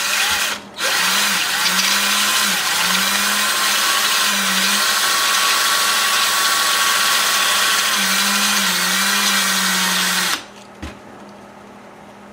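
Power drill spinning a brake hone wrapped in oiled 400-grit sandpaper inside a Maytag Model 72 engine cylinder, deglazing the bore. It runs steadily with a slightly wavering motor pitch and a brief break about half a second in, then stops about ten seconds in.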